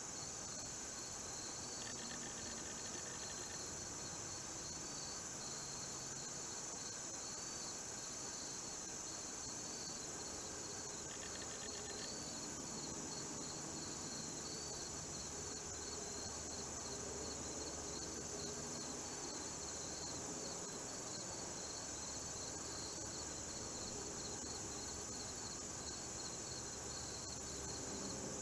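Steady woodland insect chorus of crickets and other insects: a constant high, shrill hum with a fast pulsing trill just below it. A brief lower trill cuts in twice, a couple of seconds in and again near the middle.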